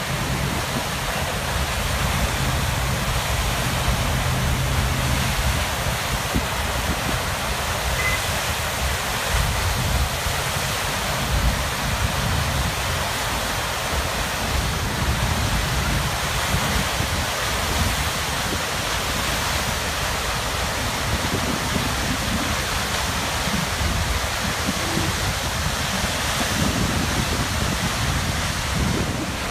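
Steady rushing of a large flood release pouring out of a dam's outlet and churning white into the river channel below.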